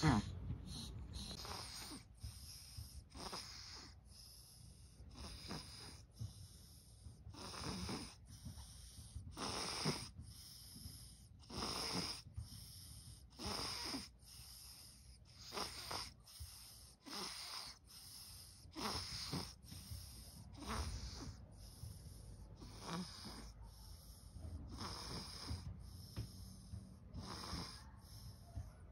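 A sleeping, swaddled baby breathing noisily around a pacifier, one soft wheezy breath about every second.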